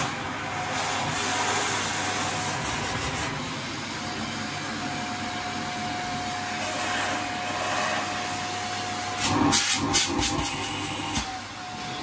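Shark upright vacuum cleaner running steadily, sucking through its hose and hand tool, with a steady whine. About nine seconds in, a quick run of knocks and rattles as the hose and tool are handled.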